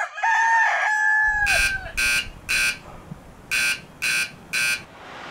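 A rooster crows once, its call falling away about two seconds in, as an alarm clock starts beeping in two sets of three short high beeps.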